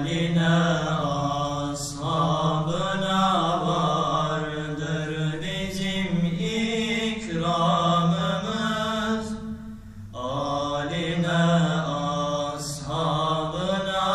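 Two young male voices singing a Turkish ilahi (Islamic hymn) unaccompanied, in long held, ornamented notes, with a short break for breath about two-thirds of the way through.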